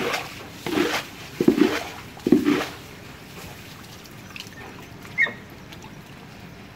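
A dog digging with her front paws in a water-filled hole in wet mud and gravel: four quick splashing, scraping strokes in the first two and a half seconds, then quieter trickling water. There is a short high chirp about five seconds in.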